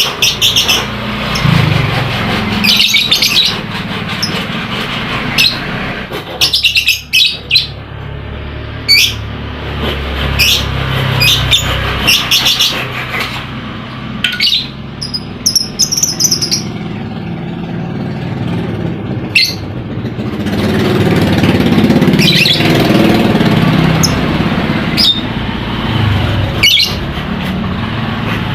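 Lovebird calling in repeated short, shrill chirps and squeaks, at irregular intervals, over a steady low background rumble. This is lure song meant to set other lovebirds calling.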